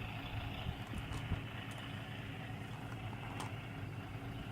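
A voice-command toy car's small speaker playing a steady engine-idling sound effect after its engine has been switched on, with a few faint clicks.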